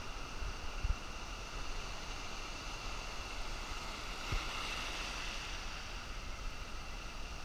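Ocean surf washing up the shore as a steady rushing noise, swelling a little about four seconds in as a wave runs in, with wind buffeting the microphone in a few low thumps.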